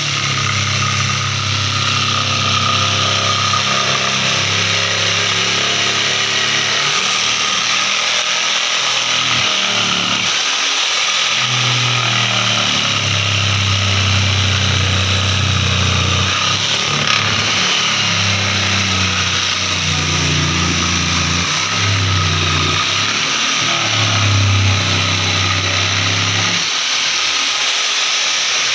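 Electric jigsaw cutting a curve in laminated plywood board, running steadily, with its low hum dropping out briefly several times.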